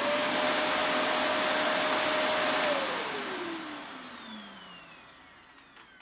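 Shark upright vacuum cleaner running at full speed with a steady motor whine and rushing air. About two and a half seconds in it shuts off, and the motor winds down with its whine sliding lower and fading over the last three seconds.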